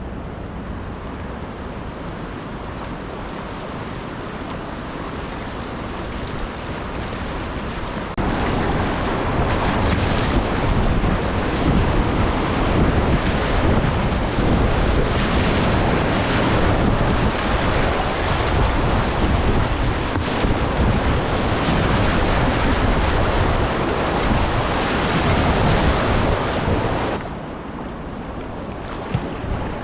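Rushing whitewater of a low-flow river rapid, with wind buffeting the microphone. The water noise jumps sharply louder about eight seconds in and falls back near the end.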